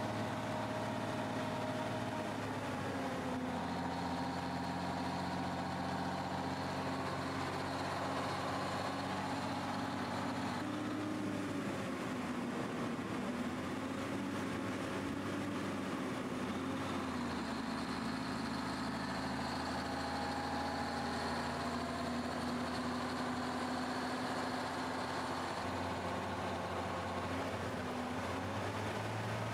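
1954 Freightliner tractor's diesel engine pulling a loaded tanker, running steadily, with its engine speed stepping down and up several times as the driver works the main and auxiliary gear sticks.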